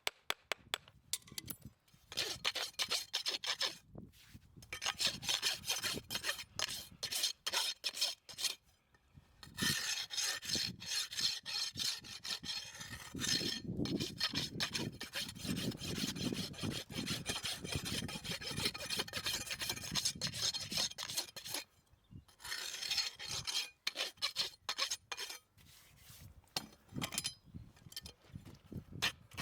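A farrier's rasp filing a horse's hoof in repeated back-and-forth strokes, with short pauses between runs of strokes.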